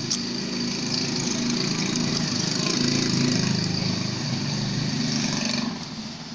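Rusty steel barrel bolt grating in its housing as it is worked back and forth, a continuous rough scraping that stops near the end. The grating comes from rust seizing the bolt.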